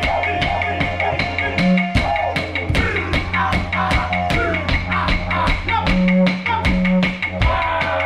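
Didgeridoo drone with its overtones, swelling louder in places, over clapsticks beating a steady rhythm of about four strokes a second: live music accompanying an Aboriginal dance.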